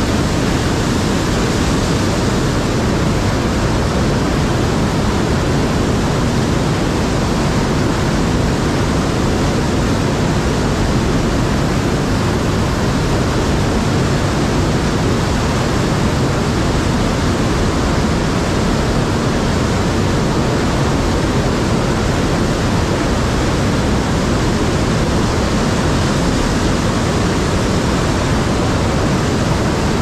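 River white water rushing through a narrow rock gorge, loud and steady.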